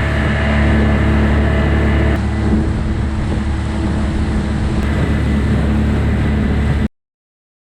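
Boat motor running steadily under way, with a rushing noise over it; the sound cuts off abruptly near the end.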